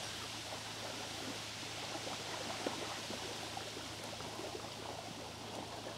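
Steady outdoor hiss of water-side ambience, with a faint steady low hum and a few faint ticks.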